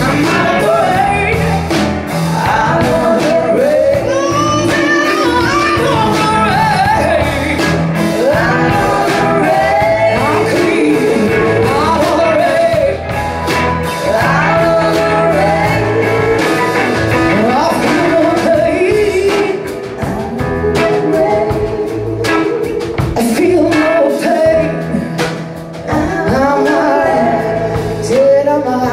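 Live band music: a female lead singer with backing singers singing in harmony, over electric bass, drums, keyboards and guitar.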